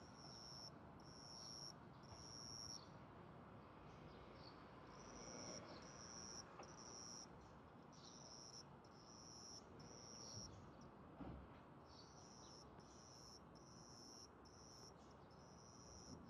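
A small cricket chirping, raising its wings and rubbing them together. It makes a steady run of high chirps, about one a second, each lasting roughly half a second, with two brief pauses.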